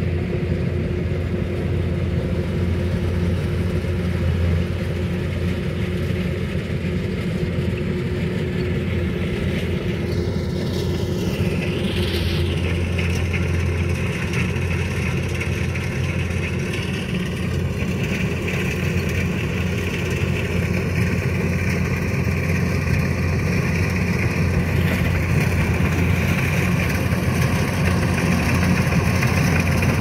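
Rice combine harvester's engine and machinery running steadily at work, a deep continuous drone that grows a little louder near the end. A brief sound rising and falling in pitch about twelve seconds in.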